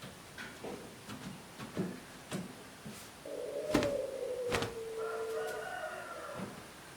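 A rooster crowing: one long call of about three seconds that falls slightly in pitch, starting about three seconds in. Light knocks and clicks come before it, and two sharper knocks fall during it.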